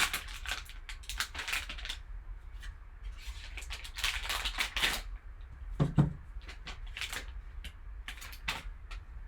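Sealed card-pack packaging being opened, with crinkling and tearing of the wrapper and the clicks and taps of cards being handled. A single thump comes about six seconds in.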